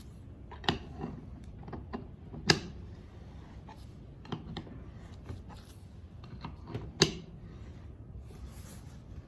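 Small hard parts being handled and set down: scattered light clicks and knocks over a low steady background, with three sharper knocks, one near the start, one about a quarter of the way in, and one about three-quarters through.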